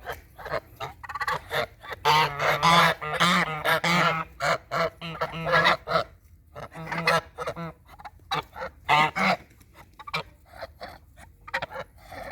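Farm birds calling repeatedly. The calls are densest and loudest from about two to six seconds in, with shorter calls later.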